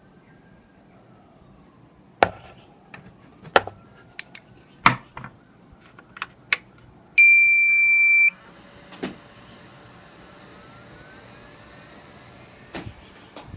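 Scattered clicks and knocks as a fan's cable connector is handled and pushed onto the DVR's circuit board. Then, about seven seconds in, a loud electronic beep lasting about a second as the Amcrest security-camera DVR powers up, followed by a faint steady whir of the newly fitted Noctua fan running.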